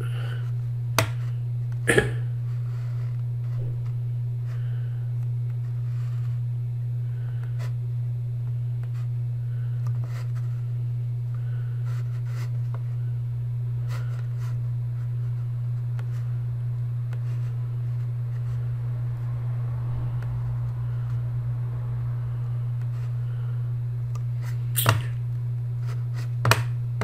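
A steady low hum, with a few sharp clicks about one and two seconds in and two more near the end.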